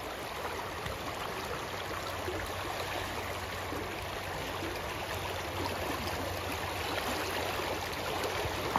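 Shallow, fast river water rushing steadily through a riffle.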